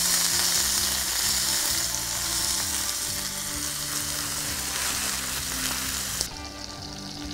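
Beef tenderloin searing in smoking-hot canola oil in a stainless steel frying pan: a loud, steady sizzle that cuts off suddenly about six seconds in. Soft background music with held notes runs underneath.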